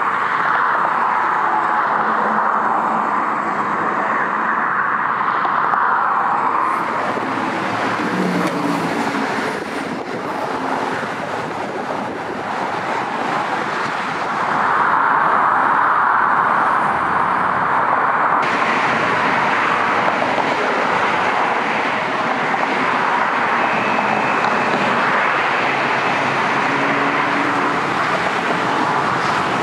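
Siemens P2000 light rail train running, mixed with steady road traffic noise.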